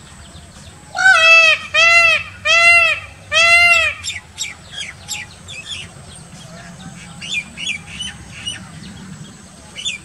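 Indian peafowl (peacock) calling: four loud calls in a row about a second in, each a short note that rises and falls in pitch. Fainter high chirps of small birds follow.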